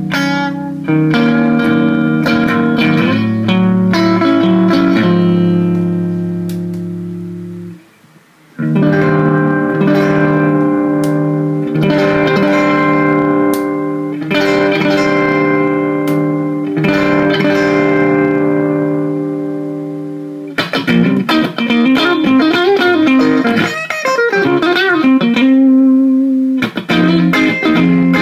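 Electric guitar played through an Egnater Rebel-20 valve amp head into a speaker cabinet. Ringing chords die away about eight seconds in, and fresh chords follow every couple of seconds. Quicker single-note playing starts at about twenty seconds, and chords return near the end.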